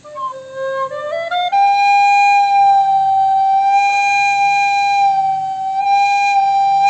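Plastic soprano recorder: a low note that climbs in small steps over the first second and a half, then one long high note held with slight wavers. It is played to show how the recorder's pitch shifts with breath pressure.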